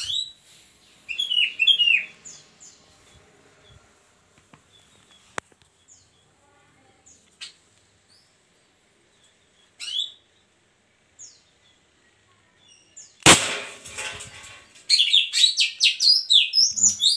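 A single sharp shot from an upgraded 6 mm airsoft Glock 19 pistol about 13 seconds in, with a short ringing tail. Birds chirp around it, most busily in the last few seconds.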